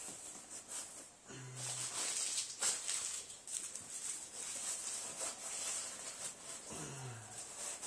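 Newspaper and a small cardboard box crinkling and rustling as paper is stuffed into the box by hand, a dense run of irregular crackles.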